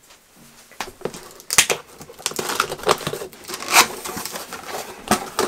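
Cardboard shipping carton being opened by hand: top flaps pulled up and the packing inside handled, with rustling scrapes of cardboard and several sharp knocks, the loudest about a second and a half in and near four seconds.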